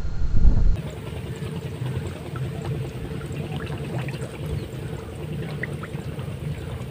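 Faint trickling and lapping of water in a shallow flooded rice paddy, a steady low wash with scattered small clicks.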